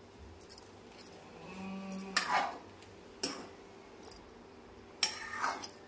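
Scattered light metal clinks and knocks of kitchen utensils against a cooking pot, with a short pitched call or voice about two seconds in.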